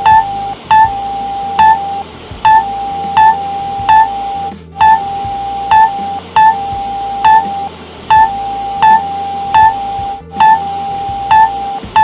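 Synthesized emergency alert alarm: a steady high electronic tone that breaks off briefly every few seconds, with short, louder beeps about once a second and a low musical line underneath.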